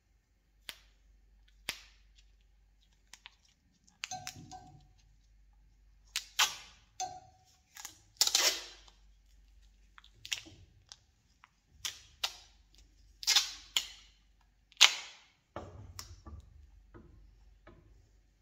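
Adhesive tape being pulled off its roll in short rips, about half a dozen times, the longest and loudest near the middle and about three-quarters through, with small clicks and handling noise between as it is wound around a hose joint.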